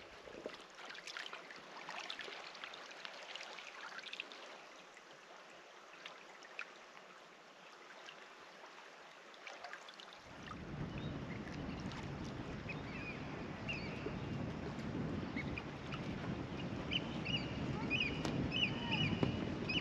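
Outdoor ambience: a faint hiss with scattered small clicks. About halfway in, a louder low rush sets in, and birds chirp repeatedly over it.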